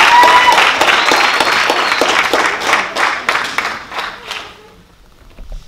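Theatre audience applauding, with a few voices calling out; the clapping thins out and dies away about four and a half seconds in.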